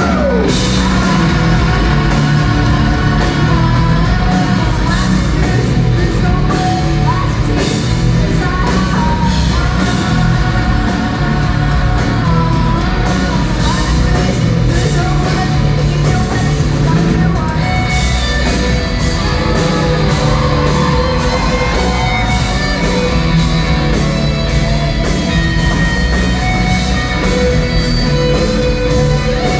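Live rock band playing: electric guitars, bass and drum kit with a woman singing lead, heard from the audience in a concert hall.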